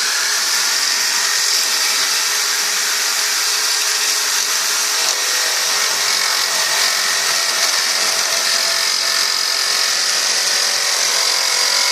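Electric woodworking machine running steadily while working wood, a loud even whine with a strong high hiss.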